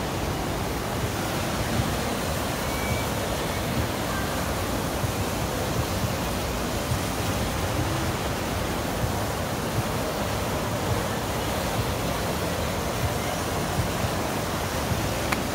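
Steady wind blowing across the phone's microphone, an even rushing hiss without a break.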